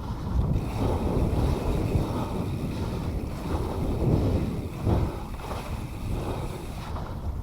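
Wind buffeting an action camera's microphone and tyres rumbling over a dirt trail as a mountain bike is ridden fast, in uneven surges, with the rider's heavy breathing now and then.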